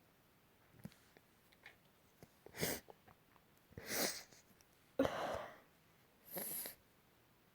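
A person sneezing: four short, breathy bursts in quick succession, the sharpest and loudest about five seconds in, after a few faint clicks.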